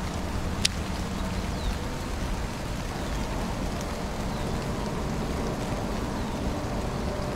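Rain falling steadily, with a single sharp click about half a second in.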